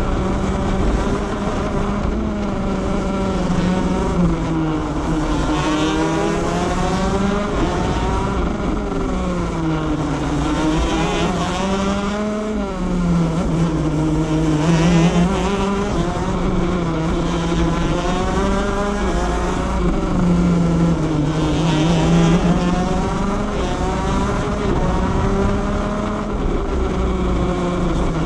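Shifter kart's 125cc two-stroke engine at racing speed, heard from onboard: its high-revving note rises and falls over and over as the kart accelerates out of corners and slows for the next.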